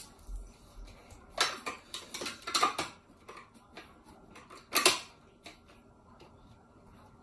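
Several sharp clacks and rustles as the magnetic side covers are snapped onto the metal frame of a Secretlab Titan Evo gaming chair's backrest. There is a cluster of clacks a second and a half to three seconds in, and the loudest single clack comes about five seconds in.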